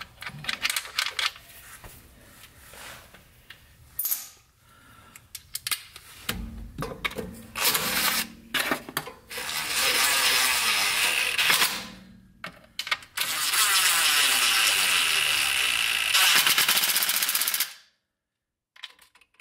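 Cordless impact driver running in two bursts, the first about two seconds long and the second about four, driving in the transmission filter's two 8 mm bolts. Before that, scattered clicks and knocks of parts and tools being handled.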